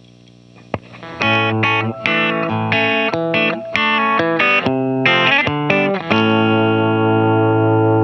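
Electric guitar played through a Schu-Tone Blind Squirrel optical compressor pedal. After a brief pause, a quick run of picked single notes, then a chord left ringing with long, even sustain.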